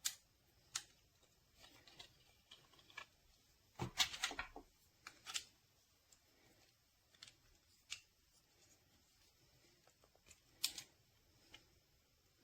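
Faint, scattered clicks and small knocks of handling, with a short cluster of rattling clicks about four seconds in and a few single clicks spread around it.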